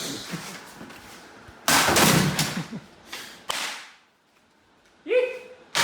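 Thrown objects striking a spinning ceiling fan: two loud sharp hits with a clatter, the first about two seconds in and the second a second and a half later, each dying away.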